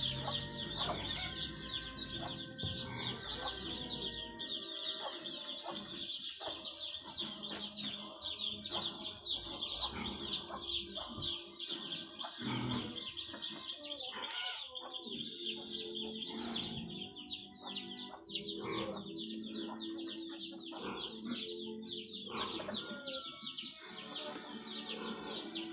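Birds chirping and clucking without pause, many quick chirps overlapping, with faint music underneath.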